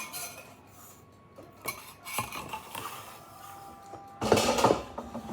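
Handling noise as a shrink-wrapped sublimation tumbler is worked by hand: soft rustles and light knocks, with a louder rustling stretch about four seconds in.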